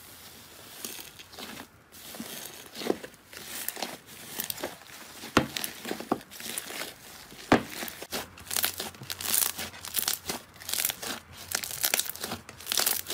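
Slime being squeezed and poked by hand, making irregular crackling clicks and pops that grow denser and louder in the second half.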